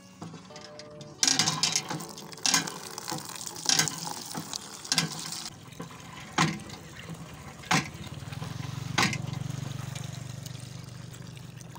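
Borehole hand pump being worked to fill a plastic bucket: a sharp metal clank about every 1.3 seconds with each stroke of the handle, over water gushing and splashing into the bucket. The clanks stop about nine seconds in.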